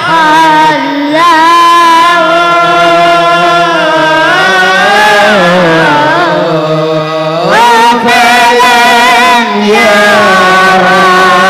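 Unaccompanied male voice singing an Arabic devotional praise poem in long, ornamented melismatic lines, with a steady low note held beneath. The lead voice pauses briefly just past the middle, then comes back in on a rising glide.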